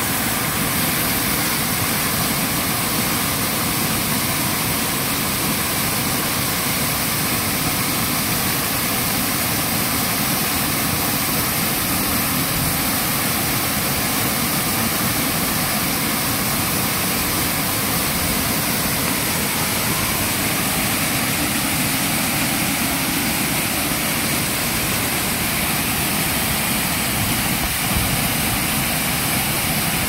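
Steady rush of a waterfall pouring into a plunge pool.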